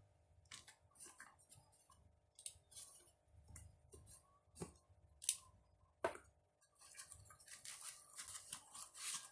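Packaging and small parts handled by hand: faint irregular rustles and clicks, with a few sharper clicks about five to six seconds in and a dense run of rustling near the end.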